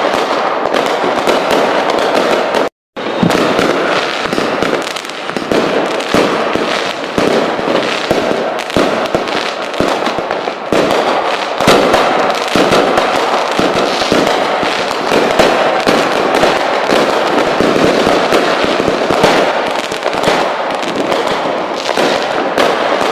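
Fireworks going off in a dense, continuous run of bangs and crackles, broken by a brief dropout to silence about three seconds in.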